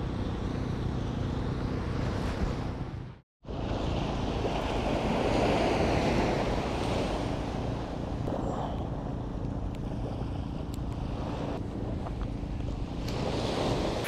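Wind buffeting the microphone over the steady wash of small waves breaking on the shore, broken by a brief dropout to silence about three seconds in.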